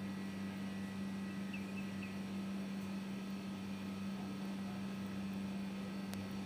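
A steady low electrical hum over faint hiss, with a few faint short high chirps about a second and a half in.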